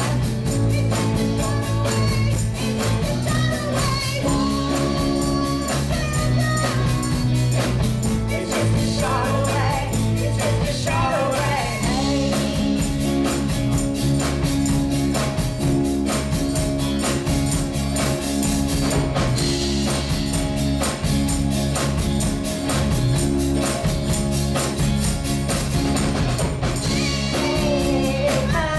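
Live rock and roll band playing: electric guitars and bass over a drum kit keeping a fast, steady beat, with a woman singing lead in stretches.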